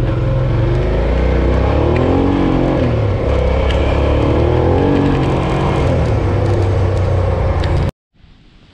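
Suzuki V-Strom 650's V-twin engine running under way on a dirt road, its pitch rising and falling a little. It cuts off suddenly near the end, leaving only a faint hiss.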